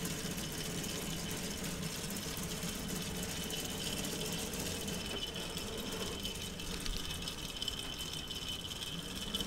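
K'nex plastic model V8 engine running, driven by a small electric motor: a steady rattling clatter of plastic gears, rods and valve gear turning. A thin, steady high whine joins about halfway through.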